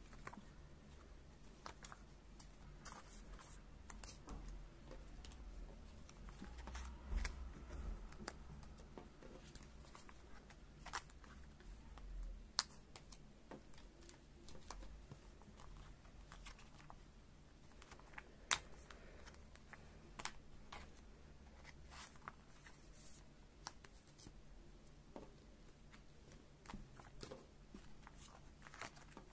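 Photocards and clear plastic card sleeves being handled on a tabletop: faint, scattered clicks and taps as cards are picked up, shuffled and slid into the sleeves, with a few sharper clicks standing out.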